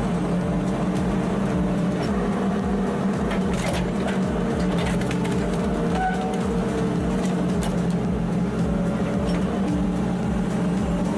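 Engine running steadily at constant speed, powering a Pezzolato industrial hydraulic log splitter. A few sharp clicks come about three to five seconds in.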